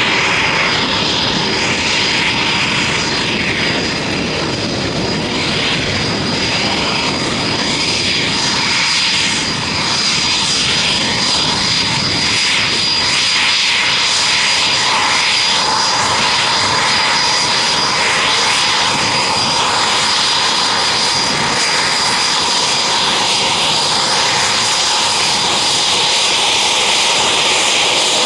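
Fixed-wing aircraft engine running steadily at close range, a continuous rushing noise with a high, steady whine over it.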